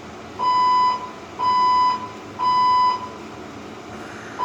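Fire alarm sounding in the temporal-three evacuation pattern: three half-second beeps at one steady high pitch, a pause, then the next set of beeps begins at the very end.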